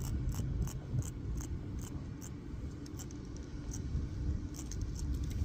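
Handling noise: irregular light clicks, several a second, over a steady low rumble.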